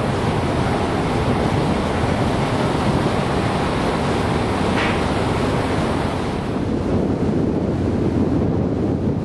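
Steady wind buffeting the microphone over a rush of water, heard from a moving boat on the sea.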